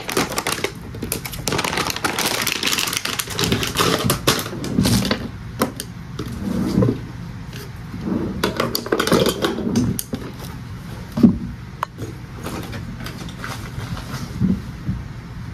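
Makeup palettes and products clattering and rustling as they are put away in a vanity drawer, with many scattered clicks and knocks.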